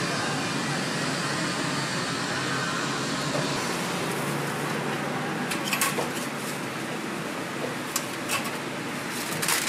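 Steady background noise at a street food stall. In the second half come a few light clicks and scrapes of metal tongs on a stainless wire rack as a bacon waffle is lifted and folded.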